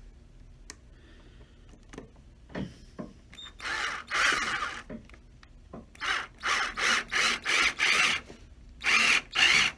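Cordless drill-driver with a Phillips bit whirring in short bursts as it drives small screws through metal toe plates into a leather shoe sole: two longer runs, then a quick string of about six short pulses, then two more. A few light clicks of handling come before the first run.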